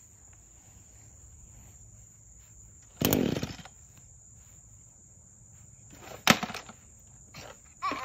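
Gas two-stroke string trimmer being pull-started: three yanks on the recoil starter cord, each a short rasping turn-over of the engine, the loudest about three seconds in. The engine does not catch and run between pulls.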